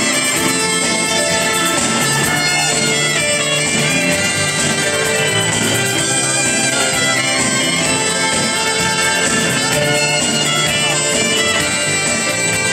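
Live orchestra with violins playing an instrumental passage of a pop song arrangement.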